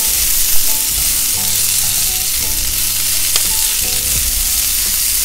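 Chopped onion, green bell pepper and green onion sizzling steadily in hot oil in a nonstick skillet while being stirred and tossed with a utensil, with an occasional light clack of the utensil against the pan.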